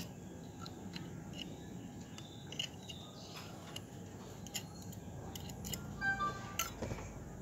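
Faint, scattered clicks and light scraping of a thin metal tool picking lint and dirt out of the clogged oil strainer of an old Brother single-needle sewing machine, with a few louder clicks about six seconds in.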